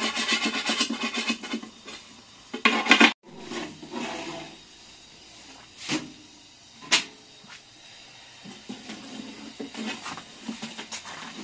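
A metal blade scraping flour and dough off a wooden bread board in quick rasping strokes. After that come two sharp knocks, then a thin wooden rolling pin rubbing back and forth over flatbread dough on the board.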